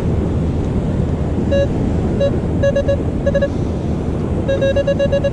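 Minelab metal detector giving short single-pitched beeps as the coil passes over a dug-out target, a nickel, ending in a quick string of beeps near the end. A steady rush of wind and surf runs underneath.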